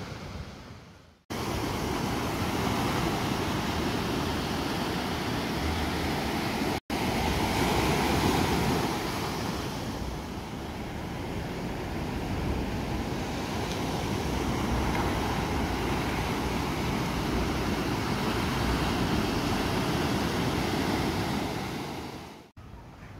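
Ocean surf breaking and washing up a sand beach, with wind rumbling on the microphone. The sound cuts out suddenly about a second in and again about seven seconds in, and fades away near the end.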